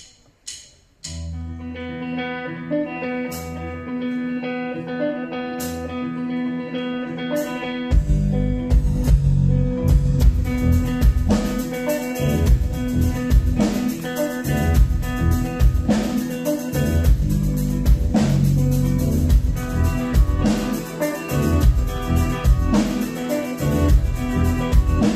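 Live band playing an instrumental intro: sustained electric guitar and bass chords ring from about a second in, after a few sharp clicks, with occasional sharp hits over them. The full drum kit comes in about eight seconds in, and the band plays on with a steady, driving beat.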